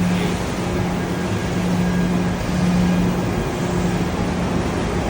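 Steady mechanical noise of running machinery, with a low hum that keeps breaking off and coming back.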